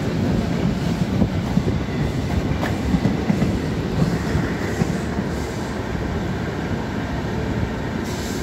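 Wheels of a moving passenger train running on the rails, heard from an open coach window: a steady rumble with occasional sharp clicks of rail joints. A passing train on the adjacent track adds to the noise in the first half, and the sound is a little lower once its last coach has gone by.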